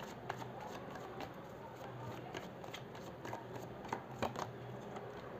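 Tarot cards being handled: faint scattered clicks and rustles of cards slipping off the deck and being laid down, with a few sharper clicks about four seconds in.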